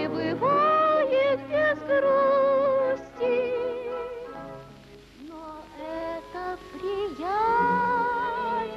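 A woman singing a song from an old film, holding long notes with vibrato and sliding up into them, over instrumental accompaniment.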